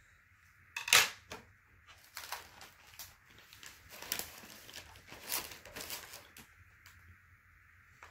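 Plastic snack packaging rustling and crinkling as packets are handled and put away, with one sharp knock about a second in.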